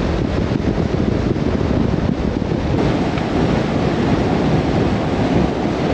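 Strong wind buffeting the microphone: a loud, unbroken rush of noise that rises and falls.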